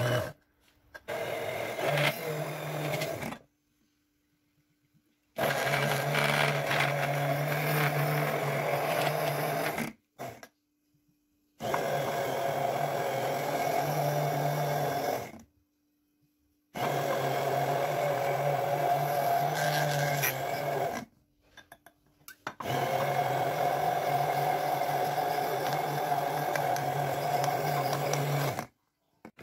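Hand-held immersion blender running in a glass jar, whipping milk, egg and oil into mayonnaise. It runs with a steady motor hum in five stretches of about four to six seconds, stopping sharply in between.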